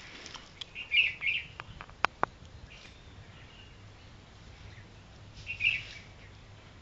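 Wild birds chirping in short bursts of high notes, once about a second in and again near the end, with two sharp clicks around two seconds in.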